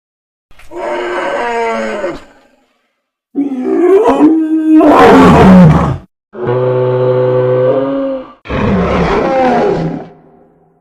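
Four roaring calls of a large animal, a made-up sound effect for the extinct horned mammal Uintatherium. Each call lasts about two seconds with short gaps between; the second is the loudest and drops in pitch at its end, and the third holds a steadier pitch.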